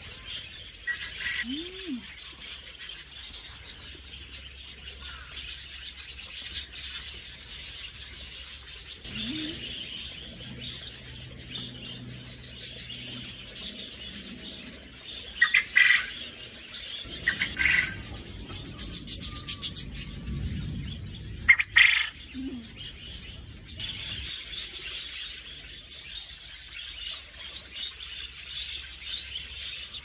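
A flock of budgerigars chattering and chirping, with a few louder calls about halfway through.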